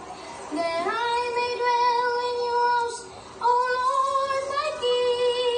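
A young boy singing a worship song in a high voice, holding long notes: one from about half a second in to about three seconds, then after a brief pause another held line that carries on to the end.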